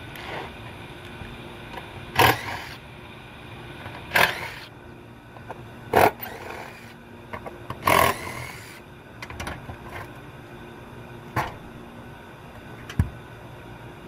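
Sheet-metal clanks and scrapes from condenser panels and parts being handled and set down, about six sharp hits spaced a couple of seconds apart, over a steady background hum.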